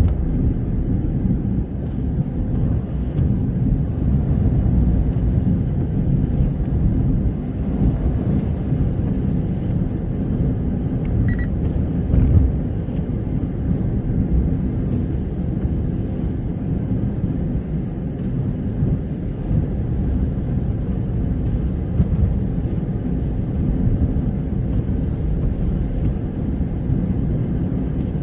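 Steady low rumble of a car's engine and tyres on the road, heard from inside the cabin while driving. A short high beep sounds about eleven seconds in.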